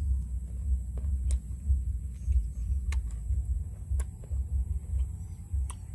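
Wind buffeting an outdoor microphone, a fluctuating low rumble, with a few scattered sharp clicks.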